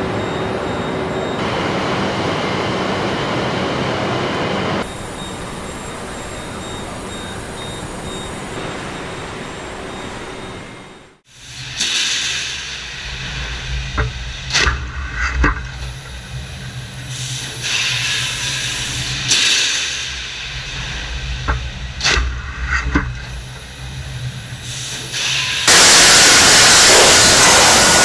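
Factory machinery noise: a steady hum, then after a sudden break a low machine rumble with sharp metal clanks from a sheet-metal stamping press, and near the end a loud steady hiss.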